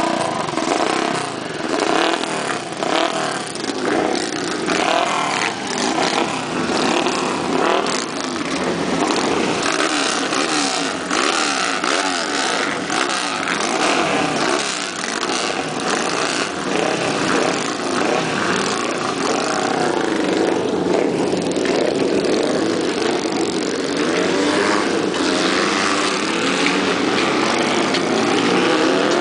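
Several dirt-track racing motorcycles revving their engines at the start line, then accelerating away around the track.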